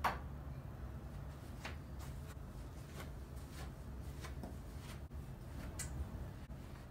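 Low, steady room hum in a hotel suite, with one sharp click right at the start and a scattering of fainter small clicks and taps after it.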